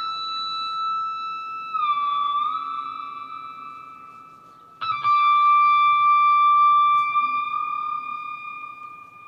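Two long, sustained high notes on a musical instrument, each struck suddenly and left to fade slowly; the first dips in pitch and slides back up about two seconds in, and the second, slightly lower, starts about five seconds in.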